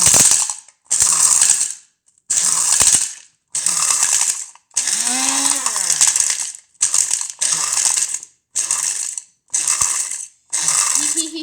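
Countertop blender pulsed on and off about ten times in short bursts, grinding hard peppermint candies down to powder.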